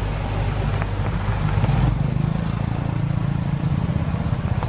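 Steady hiss of heavy rain, with a low motor drone underneath that grows stronger about two seconds in.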